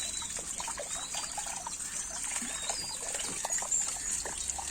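Water trickling steadily, with a few faint short high chirps over it.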